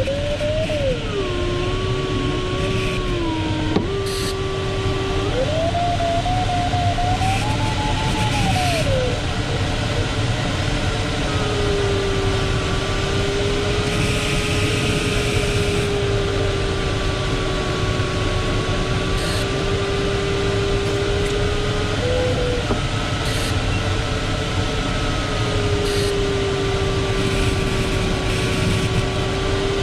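Steady rush of air around a sailplane cockpit, with the glider's audio variometer beeping a continuous tone that slides in pitch: low at first, rising higher around five seconds in and falling back, then after a short break holding a steady low tone with one brief dropout later on. A low tone is the instrument signalling sink or weak lift; the higher stretch signals climbing air.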